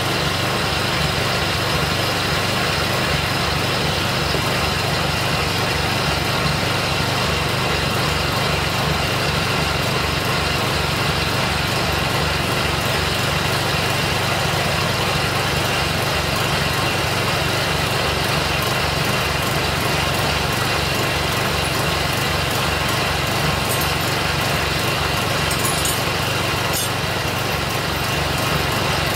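Riding lawn mower's Kohler Courage 16.5 hp OHV engine running steadily at a constant speed, with no revving.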